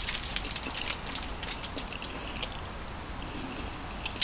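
Close-up chewing of a mouthful of cauliflower fried rice: a run of small, irregular wet mouth clicks and crackles, with one sharper click right at the end.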